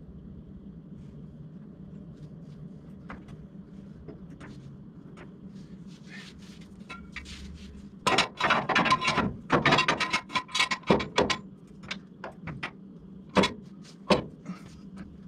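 Metal clattering and knocking from a floor jack being worked under the front of a car to raise it slightly: a dense run of rattling knocks for about three seconds, then a few single knocks.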